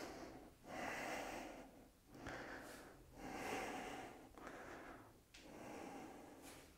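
A man breathing audibly in and out, about six breaths in a row, each lasting half a second to a second, from the exertion of a slow balance exercise.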